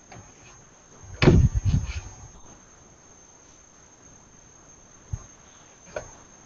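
A single thump about a second in, then a few faint clicks, over a steady high-pitched whine.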